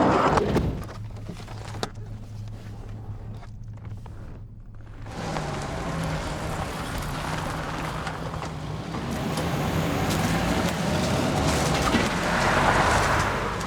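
Car engine running, with a loud thump right at the start; from about five seconds in the engine and road noise swell, loudest near the end as the car moves off.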